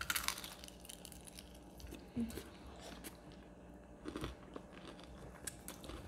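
A crunchy bite into crispy fried chicken skin right at the start, followed by chewing with a few smaller crunches about two and four seconds in.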